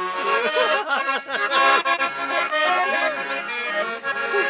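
Accordion playing, a run of held chords that change every fraction of a second.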